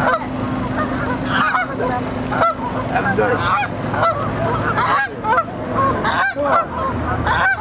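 A flock of geese honking, many short calls overlapping several times a second.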